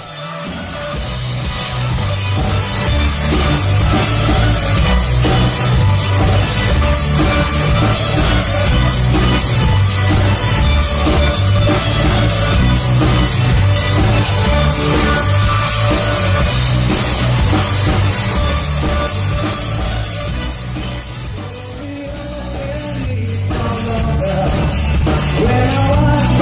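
A band playing rock-style music: drum kit with an even cymbal beat over a heavy bass line. The music thins out about twenty seconds in and builds back up.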